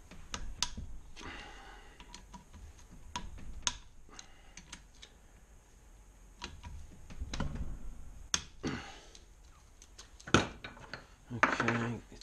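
Socket ratchet clicking in short runs while the camshaft cap bolts on a Kawasaki KLR650 cylinder head are worked loose, with scattered sharp clicks of the tool on the metal bolts and cap.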